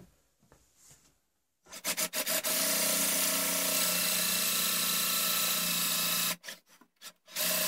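Electric drill turning a long homemade drill bit, boring the ramrod hole lengthwise into a wooden longrifle stock. It starts with a few short bursts about two seconds in, then runs steadily for about four seconds, stops suddenly, and gives a few more short bursts near the end.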